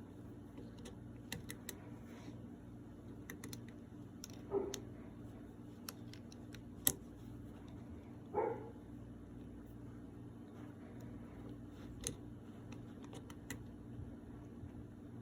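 Small, sharp clicks and taps of metal gun parts being handled and fitted during reassembly of an Erma LA22, over a steady hum. Two short whine-like sounds stand out, about four seconds apart.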